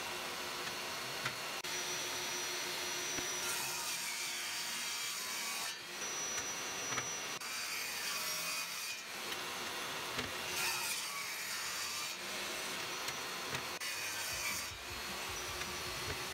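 Power saw cutting pine boards in a series of passes: a continuous loud hissing cut whose tone shifts every second or two as each board is fed through, with a faint high whine from the blade.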